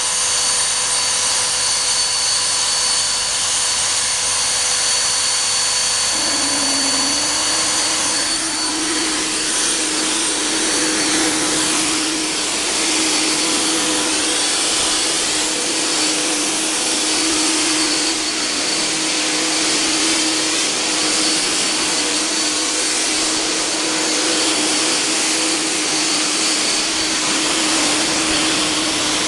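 'Volkodav' cold fog generator running steadily, its blower hissing loudly as it sprays insecticide fog. About six seconds in a low hum joins, and from about eight seconds the hiss grows fuller and rougher.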